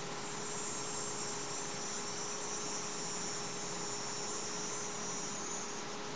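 An insect trilling, high-pitched and steady, for about five and a half seconds before it stops, over constant hiss and a faint steady hum from a webcam microphone.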